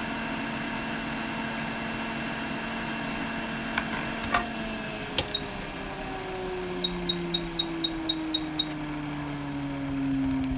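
Electronics rework bench equipment, likely a hot air rework station, running with a steady blower hiss. Its tone slowly falls in pitch over the second half. A few clicks come around the middle, followed by a quick run of eight short high beeps, like a station's control buttons being pressed.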